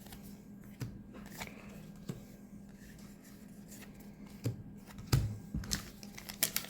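Magic: The Gathering trading cards being handled: a few scattered light taps and slides, then a busier run of clicks and knocks over the last second or so, over a faint steady hum.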